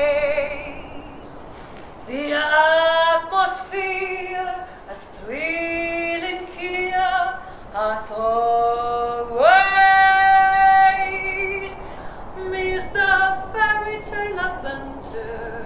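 A woman singing solo, sliding up into each phrase and holding long notes, the longest held for over a second about ten seconds in.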